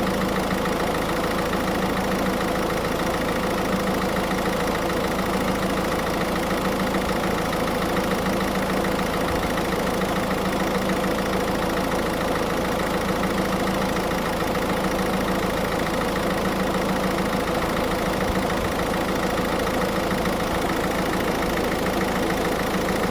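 Car engine idling steadily with the air-conditioning compressor engaged, an even, unchanging drone.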